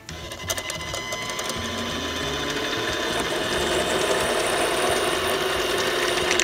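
Benchtop mini lathe starting up and running. Its motor whine rises in pitch over the first few seconds as the spindle comes up to speed, then holds steady while a countersink bit in the tailstock chuck cuts the end of the spinning bolt.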